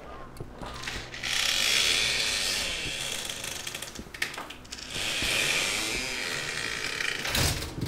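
Designed suspense sound effects: two long swells of dense, rapid ratcheting, grinding clicks over a low hum, then a heavy hit near the end.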